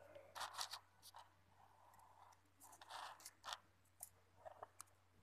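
Scissors snipping, a scattered series of short, sharp cuts and crunches, a pair near the start, a longer one about three seconds in and several quick ones near the end.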